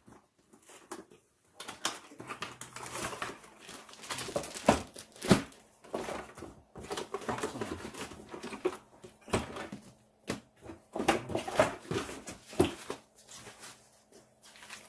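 A cardboard pillow box being opened and unpacked: irregular knocks, scrapes and rustling of cardboard and plastic wrapping, in short bursts with brief pauses.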